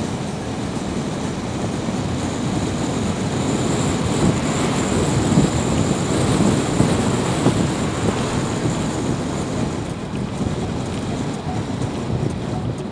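Road and wind noise inside a moving car: a steady rushing of tyres and air that grows louder in the middle and eases off near the end.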